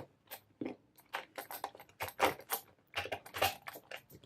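Master Magnum padlock being locked up again: a run of small, irregular metal clicks and rattles as the lock is handled and its shackle pushed shut.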